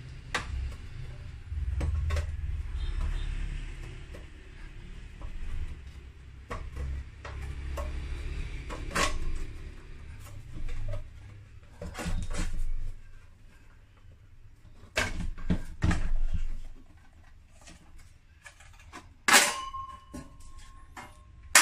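Handling noise from a mini inverter welder being taken apart: scattered clicks and knocks on its casing, with a few sharper metal clacks and a short scraping squeal near the end as the sheet-metal cover comes off.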